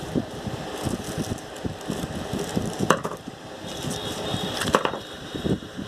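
Packaging being handled and opened by hand: irregular rustling, small knocks and clicks, with two sharper clicks about three seconds in and near the end.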